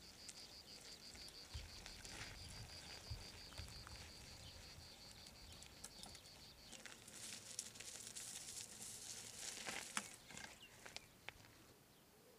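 Faint outdoor ambience with an insect chirping: a high, regularly pulsed trill of about four to five pulses a second that stops about seven seconds in. After it come a few seconds of faint rustling with scattered clicks.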